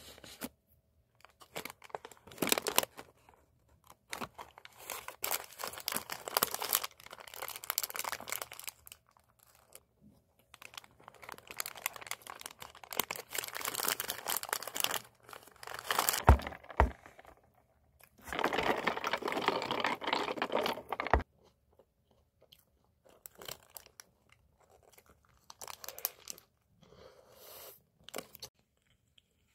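Paper burger wrapper crinkling and rustling in bursts as it is peeled back from a fried chicken burger, with a longer stretch of rustling about two-thirds through.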